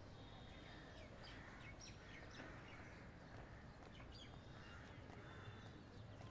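Near silence: low ambience with a few faint, scattered bird chirps.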